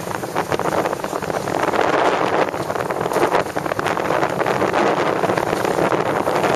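Wind buffeting the microphone in gusts, getting a little louder about a second in, over the rush of a boat moving through water.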